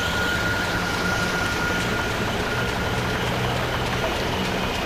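Coach bus engine idling, a steady low hum under an even haze of road noise.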